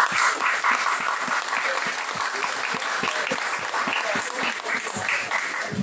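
Audience applauding: a dense stream of hand claps that eases off slightly toward the end.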